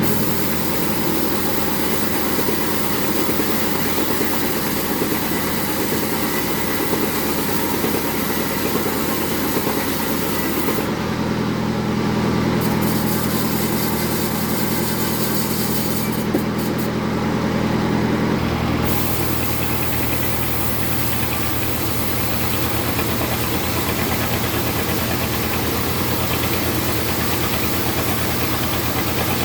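Sawmill bandsaw running with a steady, loud mechanical drone; its tone changes about a third of the way through and again about two-thirds of the way through.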